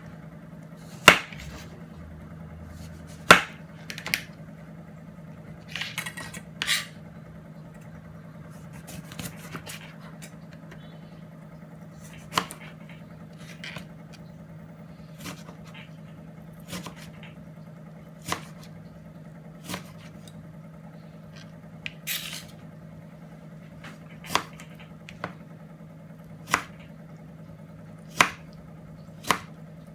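Knife cutting on a chopping board: irregular sharp knocks, roughly one every second or two, the loudest two near the start.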